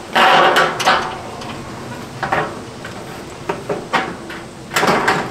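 Metal roofing sheets clattering and flexing with a wobbling ring as they are handled on the roof, in several loud rattles: the loudest right at the start and another near the end.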